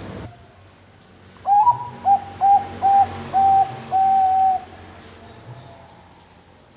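Zebra dove (Bangkok perkutut) singing one song phrase: a rising opening note followed by five clipped cooing notes at about the same pitch, the last two drawn out longer.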